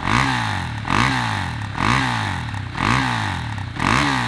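KTM 690 SMC R's single-cylinder engine, fitted with an Akrapovic slip-on exhaust, blipped on the throttle five times, about once a second, each rev rising sharply and dropping straight back.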